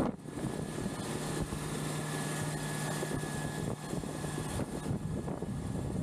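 A KamAZ dump truck's diesel engine running steadily while air is pumped through a hose into a tractor tyre. A steady low hum drops away a little before the end, and there is some wind noise on the microphone.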